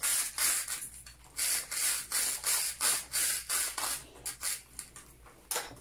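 Slime being squeezed and worked by hand for ASMR: a run of short sticky squishing sounds, about two to three a second, thinning to a few scattered clicks near the end.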